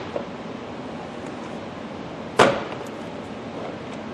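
One sharp plastic snap about two and a half seconds in, with a faint click near the start: the steering column's plastic trim cover being pressed back into place.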